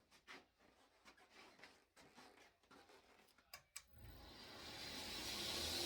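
Faint clicks and taps of the knife being handled, then about four seconds in a power tool starts up, its hiss and hum rising and running on steadily, as the edges and ends of the knife handle are about to be rounded off.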